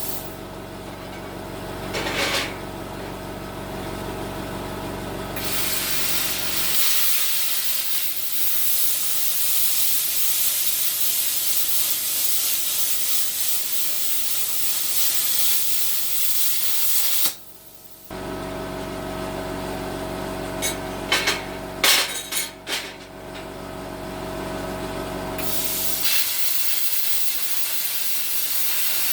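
Plasma cutter cutting, a long steady loud hiss of air and arc that stops abruptly after about twelve seconds. In the gap a lower machine hum and a few sharp clicks are heard, and near the end the hiss starts again for a second cut.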